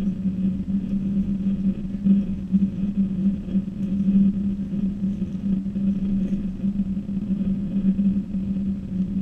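Steady low machine hum, even in pitch, with a faint hiss above it.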